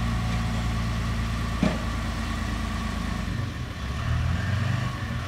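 Flatbed tow truck's engine idling steadily, growing louder near the end, with one sharp knock about a second and a half in.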